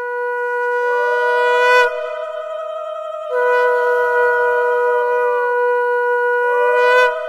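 Conch shells (shankha) blown in long held notes. Two overlap at slightly different pitches, one sliding in and dropping out again while the other holds.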